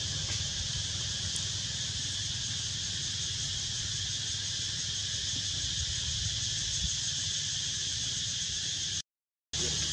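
Insects in the trees keeping up a steady, even high-pitched buzz, with a low rumble underneath. The sound cuts out completely for about half a second near the end, then returns.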